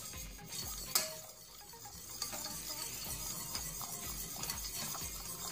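Wire whisk stirring a thin lemon cream mixture of egg, lemon juice and starch in a stainless steel saucepan on the heat, steadily and without pause, with one light clink against the pan about a second in. The stirring is kept up so the egg doesn't cook and the cream thickens.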